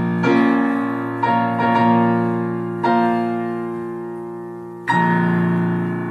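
Digital piano played solo: a slow passage of chords, struck about five times and each left to ring and fade, the last one about five seconds in held on.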